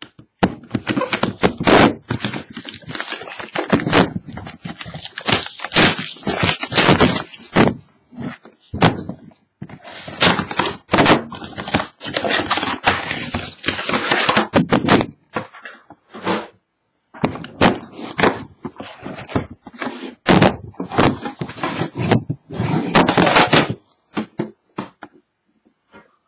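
Sealed card box being unwrapped by hand: plastic shrink-wrap and packaging crinkling, tearing and being crumpled in long bursts, with a few knocks of the box, and pauses near the middle and toward the end.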